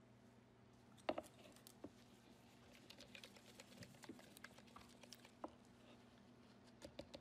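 Faint, irregular clicks and taps from hand-mixing two-part epoxy with filler in a container, the tapping of the mixing tool, over a low steady hum.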